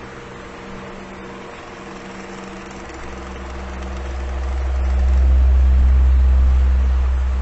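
Electric fan running with a steady motor hum over the rush of its air. A deep rumble swells to its loudest a little past the middle and eases off again near the end.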